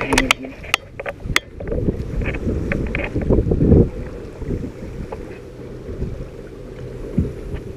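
Wind buffeting the microphone and water slapping against a small polyethylene boat's hull, with several sharp clicks and knocks in the first second and a half.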